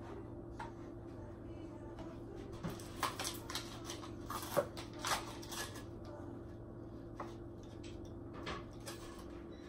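Kitchen handling noises: a scatter of light clicks and knocks of dishes and utensils being moved on the counter, busiest in the middle, over a steady low appliance hum.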